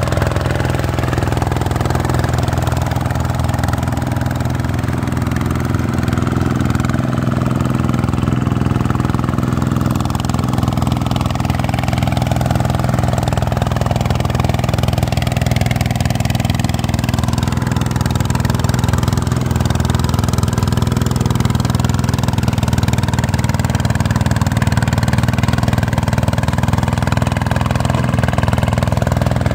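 Vikyno RV125-2 hand tractor's single-cylinder diesel engine running steadily under load while its cage wheels churn through a flooded paddy field.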